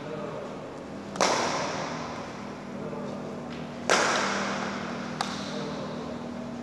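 Badminton racket striking a shuttlecock in overhead shots: two sharp cracks about three seconds apart, each ringing on in the long echo of a large hall, then a light tap near the end.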